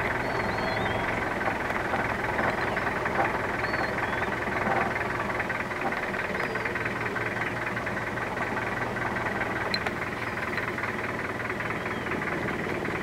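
Safari vehicle's engine running steadily with a low hum, a few faint high bird chirps over it.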